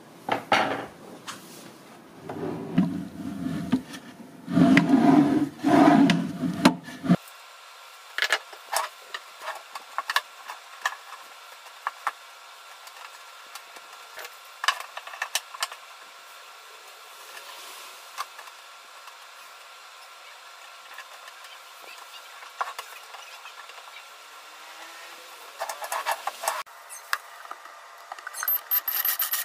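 Wooden furniture parts being handled and fitted: loud stretches of wood rubbing on wood a few seconds in, then scattered clicks and knocks. Near the end a cordless drill starts boring into a wooden board, a steady noise with a high whine.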